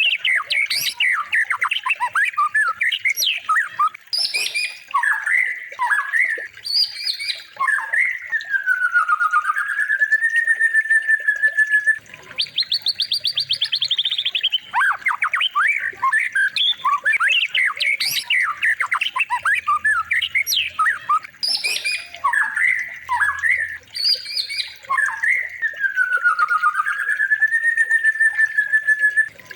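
Recorded songbird song repeating as a loop about every 14 seconds: quick sharp chirps and squawks, a fast buzzy trill, and a long whistled note that dips and then rises.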